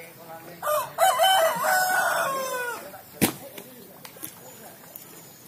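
A rooster crowing once, one long call that drops away at the end, followed a moment later by a single sharp click.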